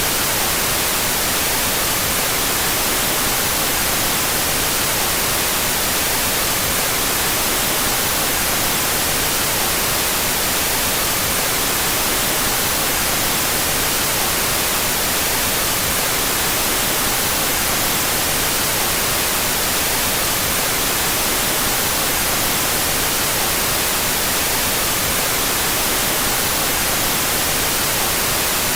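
Steady synthetic white noise: an even, unchanging hiss, brightest in the high end.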